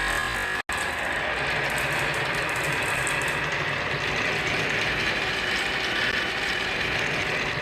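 Marbles rolling and clattering down a marble run track in a steady, continuous rattle, after a brief cut in the sound under a second in.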